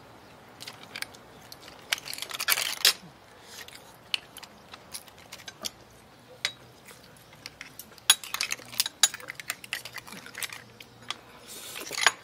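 Eating at a seafood hotpot: a scatter of light clicks and clatters from chopsticks, shells and bowls, with busier stretches of clicking and chewing noise about two and eight seconds in.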